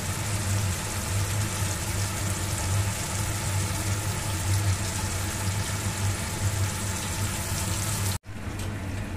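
Pork, onion and tomato sizzling in oil and butter in a wok, as a steady hiss with a low hum underneath. It breaks off abruptly near the end.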